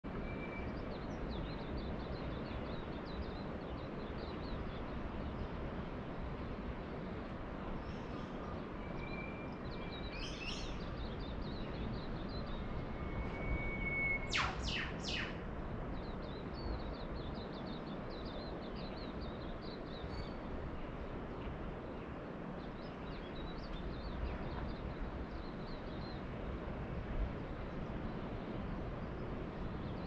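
Dawn bird chorus: many small birds twittering high and thin, with now and then a held whistle, over a steady rush of distant surf. About halfway a bird gives three quick downward-sweeping whistles, the loudest sound.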